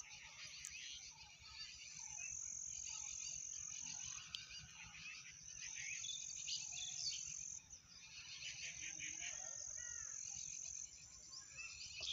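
Chopped onions and tomatoes frying in hot oil in a large iron kadhai, a faint crackling sizzle with a steady high-pitched whine over it.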